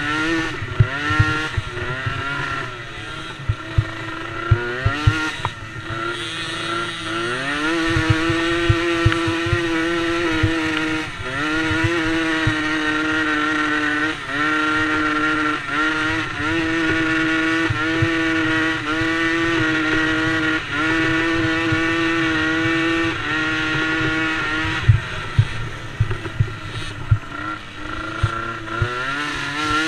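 DRR DRX90 youth quad's engine revving under race throttle. Its pitch winds up several times early on, then holds high with short throttle lifts every couple of seconds, and falls and varies again near the end, over irregular low thumps.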